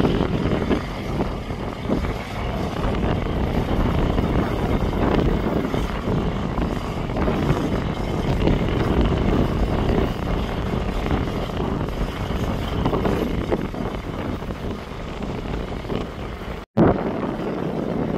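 Steady wind rumble on the microphone over a burning grass fire, with faint scattered crackles from the grass. The sound cuts out for an instant near the end.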